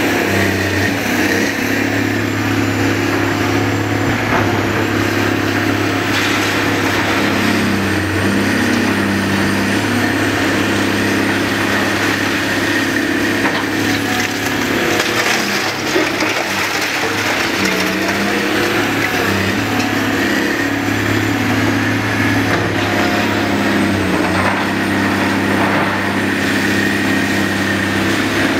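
Caterpillar 345B L excavator's diesel engine running steadily under load as the bucket digs through demolition debris, with crunching and clattering of broken concrete and wood.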